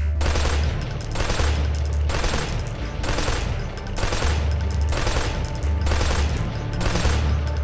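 Dubbed assault-rifle gunfire sound effects, short bursts about once a second, over background music with a pulsing bass beat.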